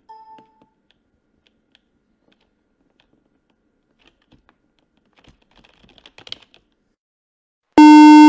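Faint, scattered clicks and ticks, then near the end a loud, harsh electronic error buzzer that starts suddenly and holds one low, buzzing pitch.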